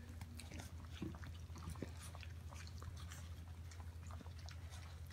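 Basset hound puppies eating soft, water-moistened puppy-food mush from a dish: many small wet chewing, smacking and lapping clicks, over a steady low hum.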